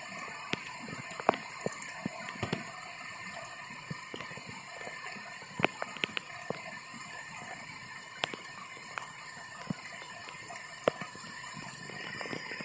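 Muddy floodwater flowing steadily, a continuous rushing hiss, with scattered sharp ticks and taps throughout.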